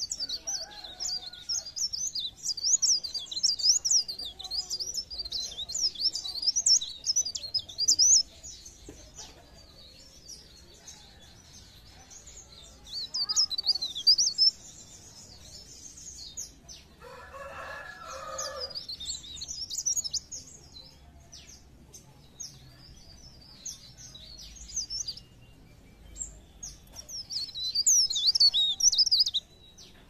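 Mountain leaf warbler (cikrak daun) singing a rapid, high twittering song in several bursts, the longest at the start and near the end. About two-thirds of the way through, a separate, lower and coarser call lasts about two seconds.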